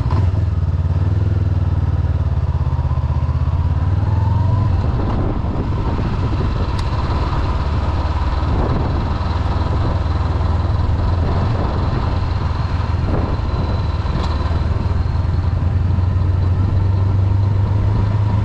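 Honda CB500X motorcycle's parallel-twin engine running steadily, with a slight change in pitch about four seconds in.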